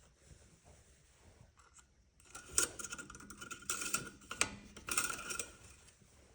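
A run of clicks, rattles and scrapes of the Honda GX630 engine's oil-fill dipstick cap being worked out and handled, starting about two seconds in and stopping about a second before the end, as the freshly filled oil level is checked.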